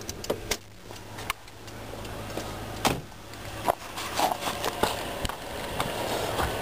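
Scattered clicks and knocks over a steady low hum: the hood release of a 2003 Nissan Maxima being pulled, then footsteps across slushy pavement.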